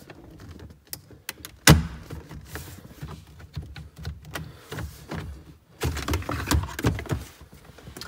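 Plastic trim clips of a Porsche 997 center console side trim panel letting go as the panel is pulled off by hand. A sharp snap comes about two seconds in, and a cluster of knocks and plastic rubbing follows near the end.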